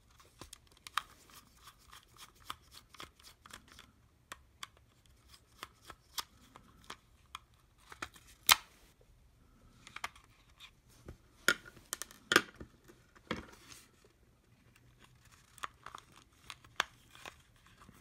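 Thin metal screwdriver clicking and scraping against the hard plastic shell of a Logitech M570 trackball as it is worked at and pried along the seam, in irregular sharp clicks with scratchy scraping between them.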